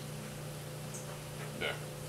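A steady low hum, like a fan or small motor running, with one brief sharper sound about a second and a half in.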